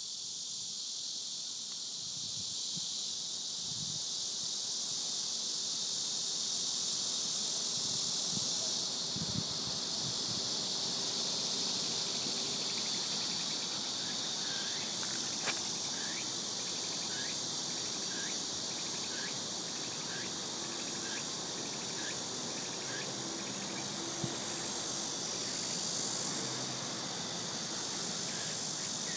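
Insects chirping in a steady high-pitched chorus, with a separate short chirp repeating about once a second from about halfway through.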